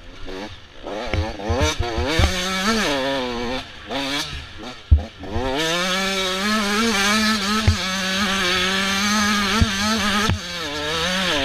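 Motocross bike's engine revving hard while it is ridden on a dirt track: short bursts of rising revs, a drop off the throttle about four seconds in, then a long pull held at high revs before easing off and picking up again near the end. A few sharp knocks come through, over wind noise on the helmet microphone.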